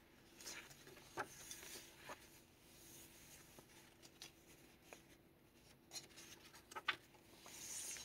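Faint paper handling: pages of a handmade paper journal turned by hand, with soft rustling and a few light clicks, the rustle swelling near the end.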